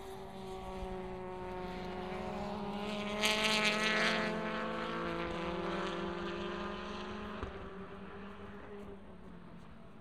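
WTCC touring cars with 1.6-litre turbocharged four-cylinder engines driving through an S-bend, engine note swelling to its loudest about three to four seconds in, then fading away as they pull out of the corner. A single short crack about seven and a half seconds in.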